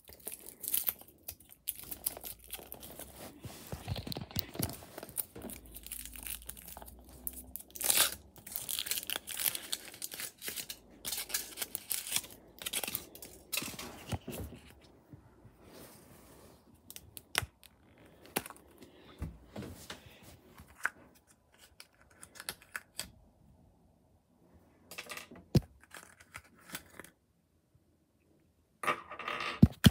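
The foil wrapper of a Kinder Surprise chocolate egg being peeled and torn off by hand: irregular crinkling and tearing, busy through the first half, sparser later, with a pause of a few seconds near the end.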